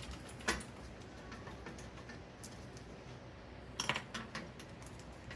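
Light clicks and clinks of a computer case being handled: one sharp click about half a second in and a quick cluster of clicks about four seconds in.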